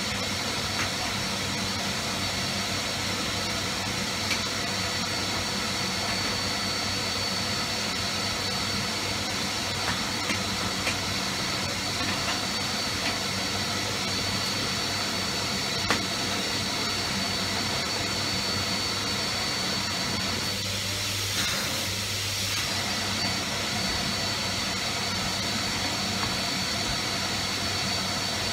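Cylinder vacuum cleaner running steadily with a high whine, its hose nozzle sucking along a brass bed frame. A few light knocks come through, and the motor note shifts briefly about three quarters of the way through.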